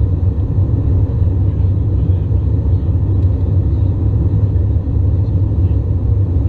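Steady low rumble inside an Airbus A320's passenger cabin during the climb after takeoff: engine and airflow noise through the fuselage, even and unbroken.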